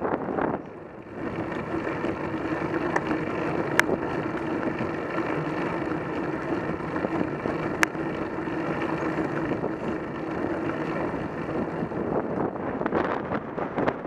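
Wind buffeting the microphone of a camera mounted on a road bike while riding, over road and tyre noise with a steady hum. Two sharp clicks come about four and eight seconds in.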